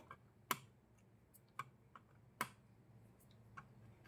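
Cutters snipping off the excess leads of freshly soldered diodes on a circuit board: two sharp clicks about two seconds apart, with a few fainter ticks between.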